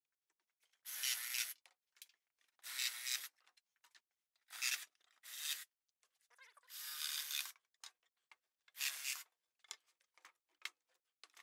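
Cordless reciprocating saw with a carbide-tipped blade cutting through pallet wood and its nails in six short bursts, each about half a second to a second long. Light knocks of boards being handled follow near the end.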